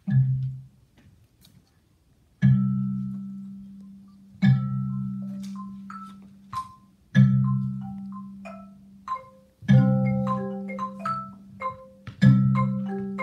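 Music on tuned mallet percussion. Deep notes are struck every two to three seconds and ring out, with higher ringing notes picked out between them, growing busier toward the end.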